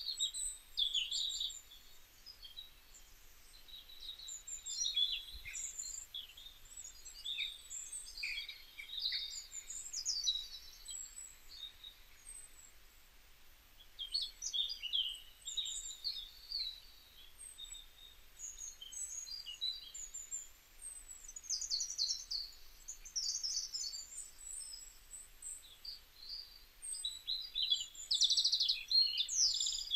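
Small birds chirping and twittering in many short calls and trills, with a few brief pauses and a fast trill near the end.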